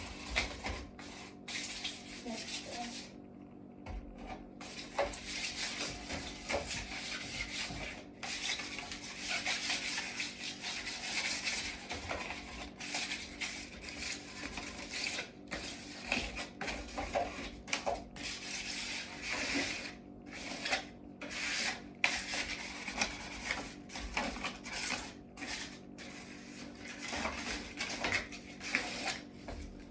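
Sandpaper rubbing on the wood of a pallet shelf: hand sanding in repeated scratchy strokes, broken by many short pauses.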